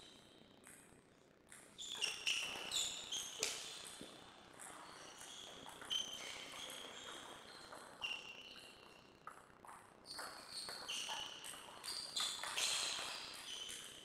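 Table tennis ball struck back and forth with rackets and bouncing on the table: irregular runs of sharp ticks, each with a short ring.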